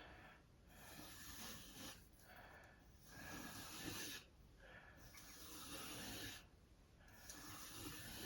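Faint abrasive strokes of a sharpening stone drawn along a chef's knife edge on a Tsprof Kadet guided sharpener: several dry, hissing passes, each about a second long with short pauses between them.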